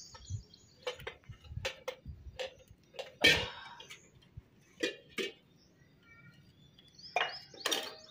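Stainless steel pot, bowl and cup clinking and knocking as a pot is set on a wood-fired clay stove. A series of separate clinks, the loudest about three seconds in.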